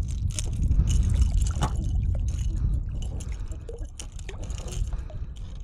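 Small splashes and drips of water at the kayak's side as a fish is handled at the surface, over a low wind rumble on the microphone; the splashing is busier in the first half and eases after about three seconds.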